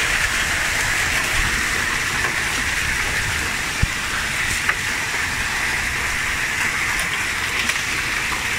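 Heavy hail mixed with rain pelting down on lawn, pavement and roofs: a dense, steady hiss with a few sharper ticks of single stones striking.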